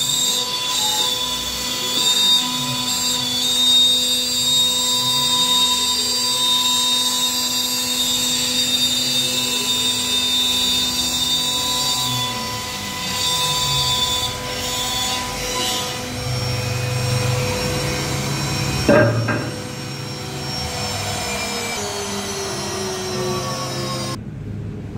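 Strom MKN 1630 CNC router cutting a wooden board: the spindle gives a steady high whine, while the axis drive motors hum in tones that rise and fall again and again as the gantry speeds up and slows down. A single knock comes about 19 seconds in.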